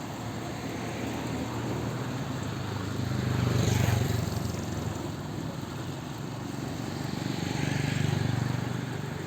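Road traffic passing by: a steady engine rumble and tyre noise, swelling as two vehicles go past, about four and eight seconds in.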